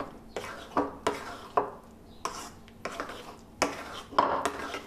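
A steel spoon stirring thick mango matho (strained-yogurt sweet) in a ceramic bowl. The spoon scrapes and knocks against the bowl in short, irregular strokes, about two a second.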